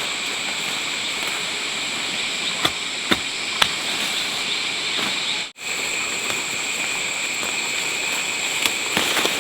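Steady outdoor background hiss with a few sharp clicks, three of them in the first half and more near the end; it briefly cuts out just past halfway.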